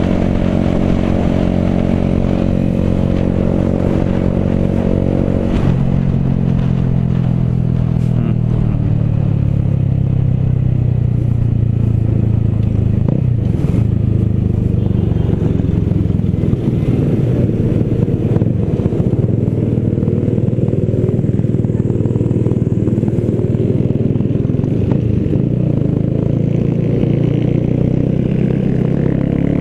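Motorcycle engine running under way. The engine note drops suddenly about five seconds in, sinks slowly through the middle, and climbs again near the end as the bike speeds up.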